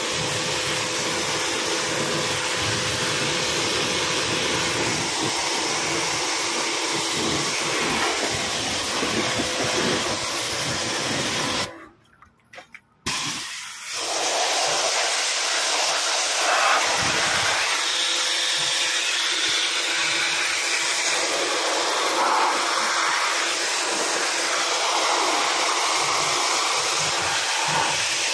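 Pressure-washer spray hissing steadily as it blasts water through an air-conditioner condenser coil to clean it. The spray breaks off for about a second and a half around halfway, then starts again.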